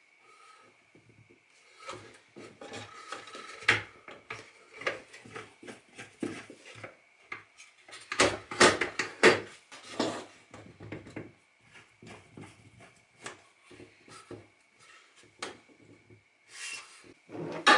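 Unpowered Evolution R255 SMS sliding mitre saw being handled: irregular clicks, knocks and rubbing of its metal and plastic parts as the saw head and mitre table are moved by hand. The knocks bunch up and grow louder about eight to ten seconds in, and there is a sharp loud knock near the end.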